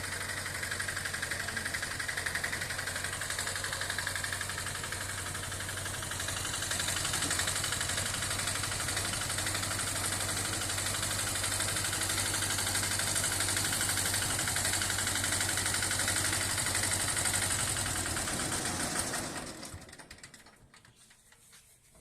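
An engine running steadily with a constant low hum, fading away about nineteen seconds in.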